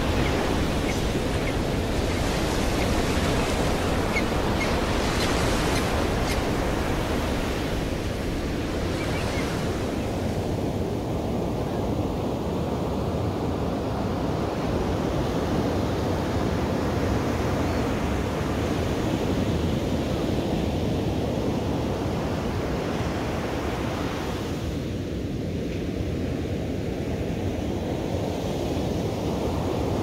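Ocean surf: waves breaking and washing ashore as a steady rush of noise, hissier in the first ten seconds or so and duller after.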